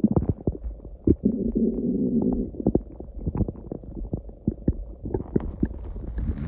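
Human stomach growling loudly: a gurgling rumble studded with crackling pops, with a fuller, groaning stretch about a second in.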